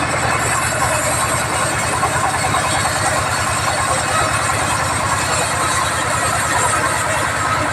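Sawmill band saw running steadily, its drive motor giving a fast, even low chugging under a hissing machine noise.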